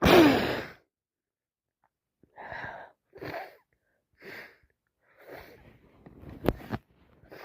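A sneeze from a woman with a head cold, loudest at the very start, followed by about six short sniffles and wheezy breaths spaced a second or so apart, one of them sharper about six and a half seconds in.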